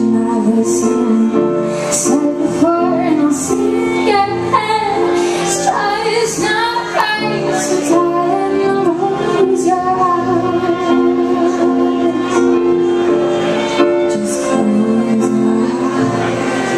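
A woman singing a song with a live band, her voice wavering over steadily held chords.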